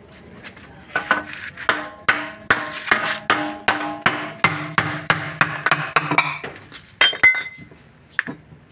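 Rapid hammer strikes on the metal case of a Hyundai Santa Fe's four-speed transmission, about three blows a second, each with a ringing tone. They stop about seven seconds in. The blows tap the transmission's end cover loose from its gasket.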